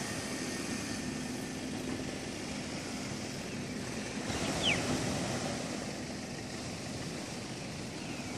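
A pickup truck's engine runs steadily at low speed, a low hum over a noisy haze, as it drags a sand-leveling rig across the beach. About halfway the engine gives way to an even wash of surf and wind, and a short falling whistle is the loudest moment.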